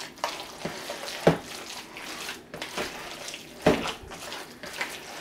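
A bare hand squishing and mixing creamy shredded-chicken salad in a plastic bowl, an irregular wet squelching with a few sharp clicks.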